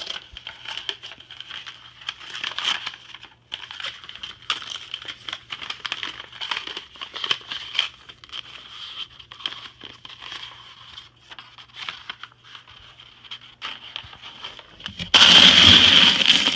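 A sheet of paper rustling and crinkling as it is handled and folded. About fifteen seconds in, a much louder clatter of a mass of coins in a plastic bucket as a hand digs through them.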